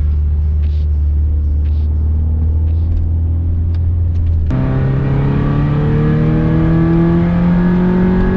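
Honda Accord wagon's four-cylinder engine: a steady low drone, then, after an abrupt cut about halfway in, the engine pulling hard in gear with its pitch rising steadily.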